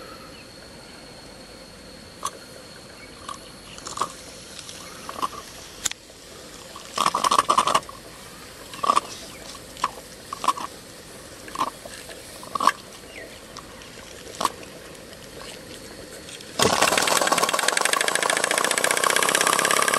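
Stuart Turner S50 single-cylinder horizontal model steam engine being started on steam: short, irregular puffs and clicks while the flywheel is turned by hand, then about seventeen seconds in it catches and runs on its own with a loud, fast, even chuffing of exhaust steam.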